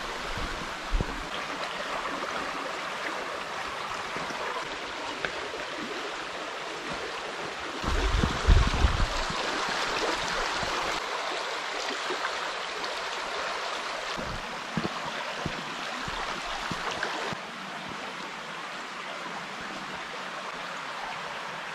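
Shallow rocky forest stream flowing and splashing steadily, with a few faint footstep thumps on a dirt path and a brief low rumble about eight seconds in. The water sound drops a little in level about three-quarters of the way through.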